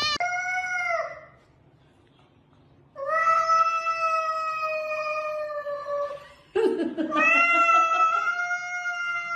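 Cat yowling in a standoff with another cat: two long, steady, drawn-out yowls of about three seconds each, after a short cry at the start.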